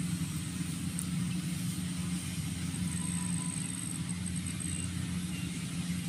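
Engine of a rice harvesting machine running steadily, a low even drone.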